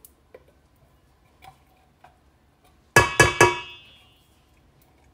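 A few faint clicks, then about three seconds in three sharp knocks in quick succession with a bright metallic ring that fades: an upturned steel can of cream of chicken soup being rapped over an enamel mixing bowl to shake the soup out.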